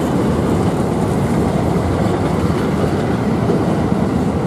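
Intermodal freight train of loaded container flat wagons rolling past close by: a steady, low rumble of wheels on rail.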